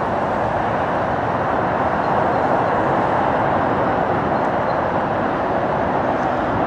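A steady, even rushing noise with no breaks or changes, with no speech over it.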